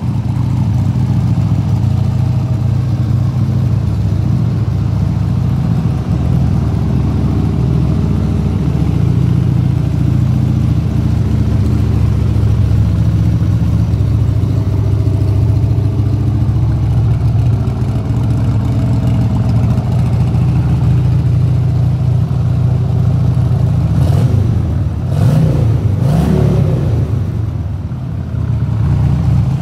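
Harley-Davidson Sportster 1200's air-cooled V-twin idling steadily through Screamin' Eagle exhausts, then revved briefly a few times near the end.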